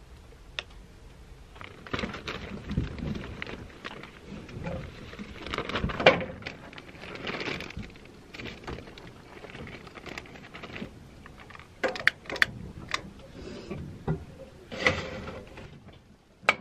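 Cooking handling sounds at a small stove: a plastic zip bag rustling as meat is tipped into a metal frying pan, with utensils and cookware knocking and clinking. There are a few sharp clicks and knocks in the second half.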